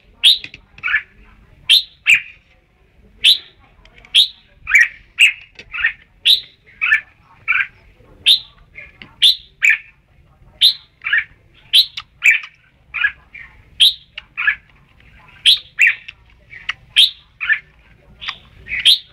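Red-whiskered bulbul singing: a steady run of short, clear whistled notes, about one or two a second.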